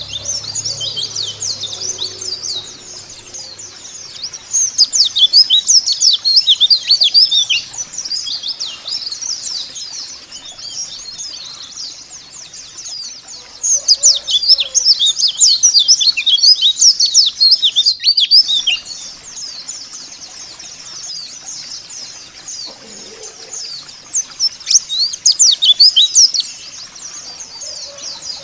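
White-eyes (pleci) singing a rapid, high twittering chatter. It comes in loud spells about five seconds in, in the middle and again near the end, with quieter chirping between them.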